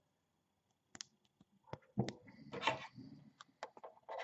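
LEGO Technic plastic pieces being handled and fitted together: pins pushed into a liftarm and a wing panel pressed on, giving a string of small sharp clicks with a brief rustle of handling near the middle.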